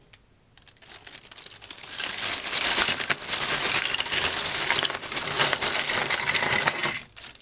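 Thin plastic bag crinkling as a heap of 3D-printed plastic parts is tipped out of it onto a cutting mat, the parts clattering and knocking together. It builds over the first couple of seconds and stops about seven seconds in.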